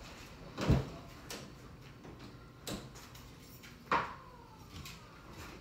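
A car door being handled and opened: a heavy thump about a second in, a few lighter knocks, and a sharp metallic latch click near the middle followed by a brief ring.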